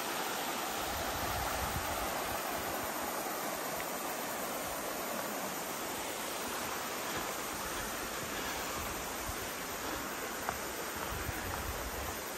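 River water rushing steadily, an even wash of flowing-water noise.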